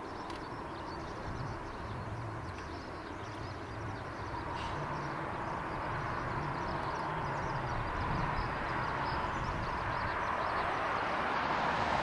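Boeing 747-8F's four GEnx turbofan engines running at low power as the freighter taxis after landing: a steady jet rush that grows gradually louder.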